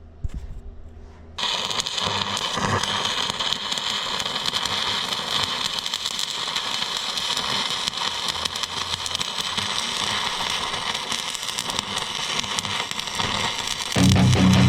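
Stick-welding arc struck about a second and a half in, then crackling steadily for over ten seconds as the electrode burns.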